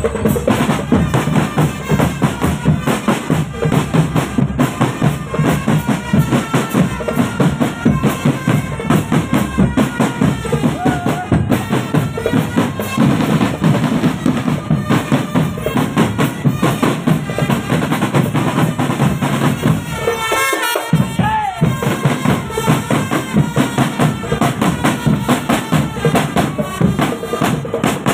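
Marching drumband playing: drums beat a steady, dense rhythm under a melody line, with a brief break in the low drums about twenty seconds in.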